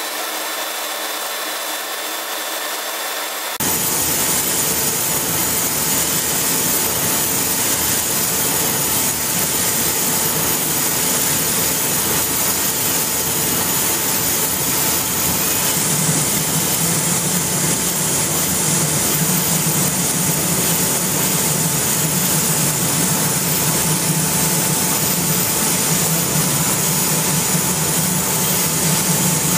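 Triumph TR1390 laser engraver running as it engraves lettering into a wooden axe handle: a steady, airy machine noise that gets louder and fuller about three and a half seconds in.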